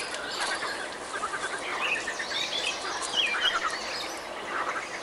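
Songbirds chirping and trilling: many short calls, some in quick runs, overlapping over a steady outdoor hiss.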